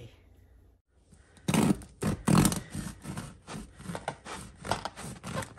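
A crusty loaf of homemade sourdough bread being handled: a run of sharp, crackly rustling noises that starts about a second and a half in.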